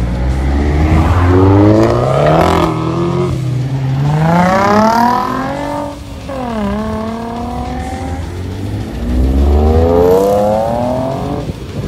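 Modified cars accelerating hard away one after another. The engine notes climb in pitch four times, each climb cut by a brief drop at a gear change or lift-off.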